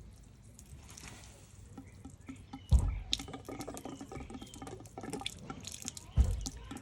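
Leftover water dripping and trickling from the outside tap's wall connector as the tap is unscrewed by hand, with small clicks and scrapes of the metal fitting. Two dull low bumps, about three and a half seconds apart, are the loudest sounds.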